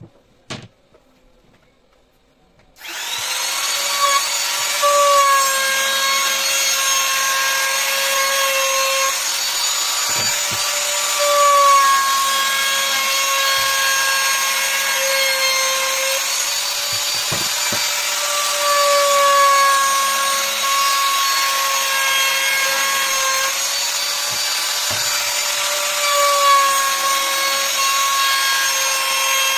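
Handheld trim router switching on about three seconds in and running at high speed, cutting along the edge of a rubberwood frame; its whine dips slightly in pitch every few seconds as the bit takes load in the wood.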